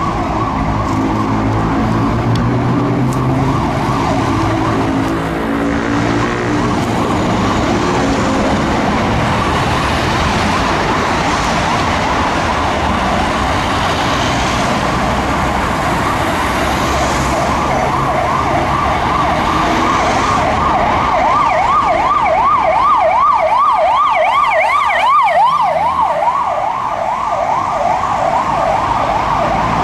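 Emergency vehicle sirens wailing in city traffic. About two-thirds of the way through, a siren switches to a fast up-and-down sweep and grows louder as the vehicle comes close, with a second, higher siren briefly joining, all over the hum of idling and moving traffic.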